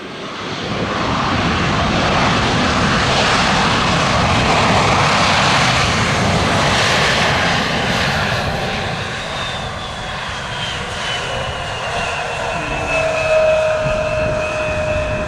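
Embraer E-175 jet airliner's twin turbofans on its landing rollout: a loud jet roar that builds about a second in and holds for several seconds, then eases off, leaving a high turbine whine that glides slowly lower as the engines spool down.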